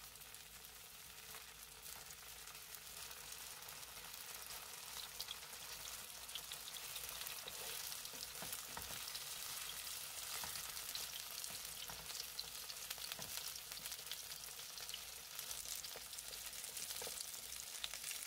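Starch-coated soft tofu gimbap rounds shallow-frying in oil: a quiet, even sizzle with fine crackling that slowly grows louder as the oil heats, with a few faint ticks.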